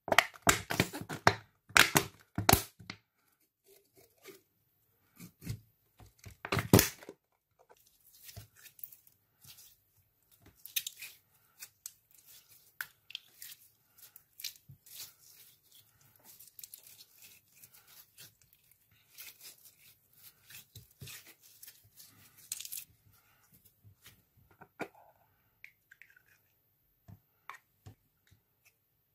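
Hands squeezing and pressing fluffy slime, giving a sticky crackling and popping. It is loudest in a few bursts over the first three seconds and again around seven seconds in, then goes on as softer, irregular crackles.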